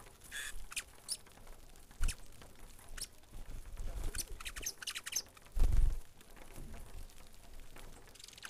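Flock of saffron finches giving short, high chirps in scattered bursts, busiest about four to five seconds in. A brief low thump a little past the middle is the loudest sound.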